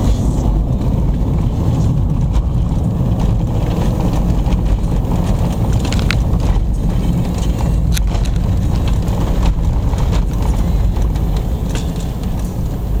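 Car driving on a snow-covered road, heard from inside the cabin: a steady low rumble of tyres and engine, with a few scattered sharp clicks.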